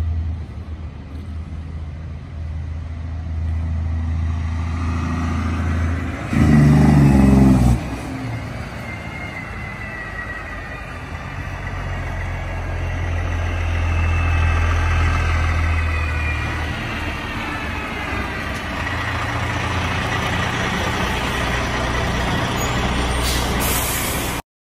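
Heavy diesel truck engine running low and steady: a custom Kenworth T909 with a Cummins X15. About six seconds in there is one loud blast lasting about a second and a half.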